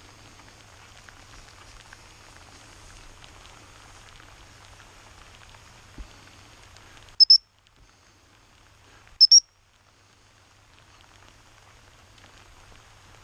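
Steady rain pattering on grass and the camera. About seven seconds in, and again about two seconds later, come two loud double blasts on a high-pitched dog whistle.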